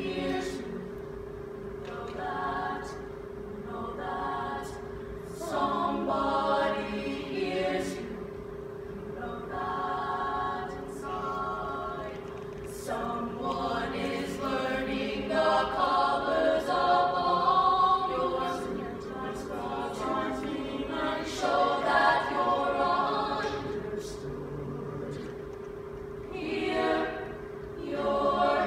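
High school show choir of mixed men's and women's voices singing in swelling phrases, heard through the auditorium, with one steady tone held underneath the whole time.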